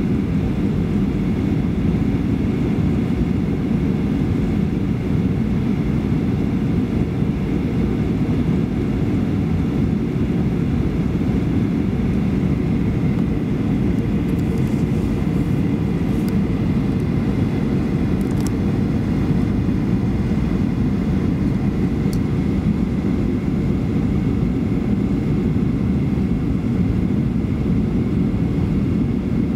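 Steady cabin noise inside a Boeing 737-800 on final approach: a low rumble of airflow and its CFM56 engines, with faint steady high tones above it. A few faint clicks come about halfway through.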